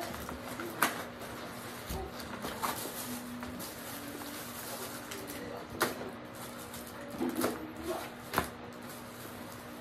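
Metal fork clicking and scraping against a plate and foil-wrapped food, several separate sharp clicks over a low steady hum.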